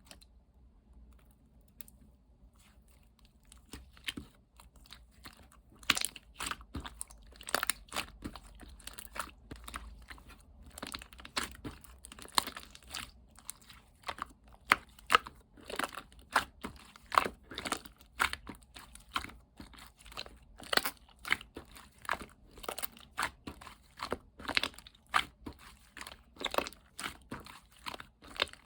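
Slime being squished and pressed by hand, making irregular sharp clicks and pops a few times a second, starting after a few quiet seconds.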